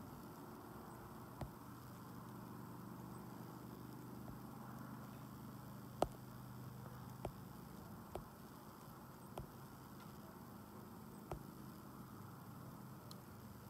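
Faint steady low hum and hiss, broken by about six short sharp clicks spread through, the loudest about six seconds in.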